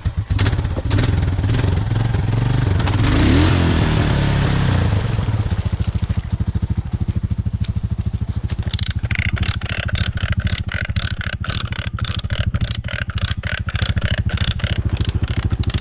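Four-wheeler (ATV) engine catching and running, revved briefly about three seconds in, then settling to a steady idle. From about halfway through, a regular clicking of roughly two to three a second rides on top of the idle.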